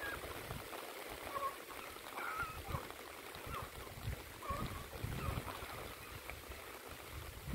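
Pack of rabbit beagles baying as they run a rabbit's scent trail: scattered short calls about once a second over a steady hiss.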